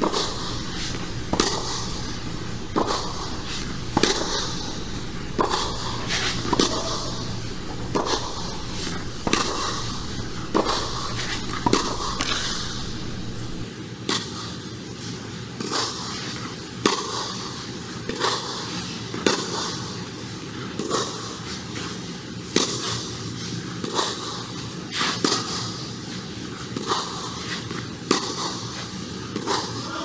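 A tennis rally: sharp pops of racquet strings striking the ball about every 1.3 seconds, the strokes alternating between the Wilson Ultra 100 v4.0 and the other player's racquet.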